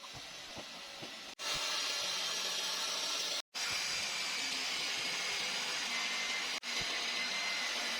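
Steady hissing machinery noise with a faint high whine, broken by three brief dropouts to silence.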